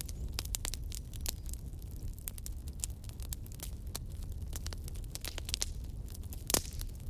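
Campfire crackling: irregular sharp snaps and pops over a steady low rumble, with one louder pop near the end.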